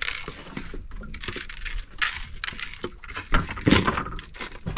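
Irregular crunching and rustling from something being handled: a run of short, uneven crackles and scrapes.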